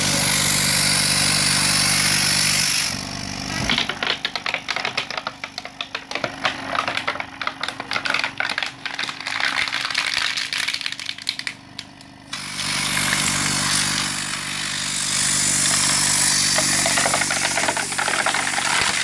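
Thomas dual-piston oil-less vacuum pump running with a steady mechanical hum. From about three to twelve seconds in, a plastic bag held over its port crinkles and crackles as it is sucked in, then the plain steady hum comes back.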